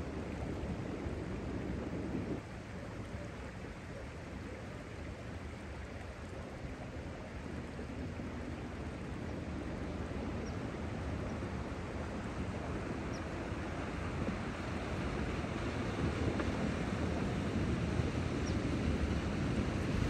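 Range Rover Sport wading through a shallow river toward the microphone: engine and water noise grow slowly louder as it comes closer, with wind rumbling on the microphone.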